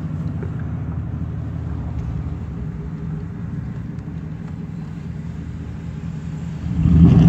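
Pickup truck's engine and road noise heard from inside the cab while driving slowly, a steady low drone. Near the end a much louder engine drone comes in.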